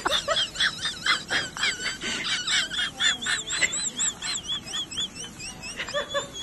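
Cat chewing and crunching a stick treat, a few quick crunches a second, with a thin, warbling high tone in the background from about three to six seconds in.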